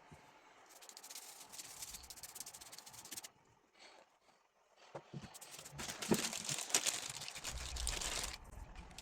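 Two spells of scratchy scrubbing with clicks, the first about two and a half seconds long and the second about three and a half, with a few knocks in the quiet gap between: parts of a pond oxygenator air pump being cleaned.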